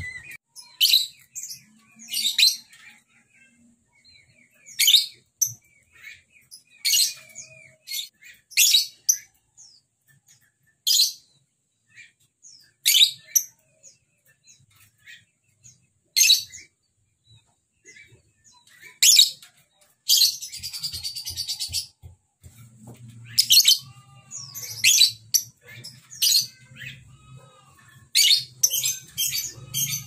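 Young lovebird giving short, sharp, high single calls every second or two, coming faster near the end; crisp-voiced separate calls rather than the long continuous 'ngekek' chatter, which this still-learning bird has not yet developed. A brief rustling hiss comes about two-thirds of the way through.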